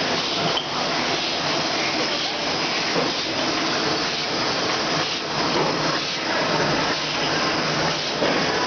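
Rotary cooking-oil filling and capping machine running: a steady hissing rush of machine noise with faint irregular clicks.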